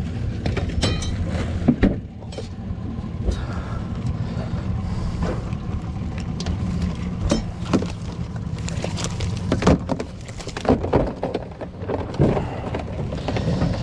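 Knocks and rattles of a crab pot and a plastic esky lid being handled against the aluminium hull of a small boat, many sharp clicks and thumps at irregular intervals, over a steady low hum.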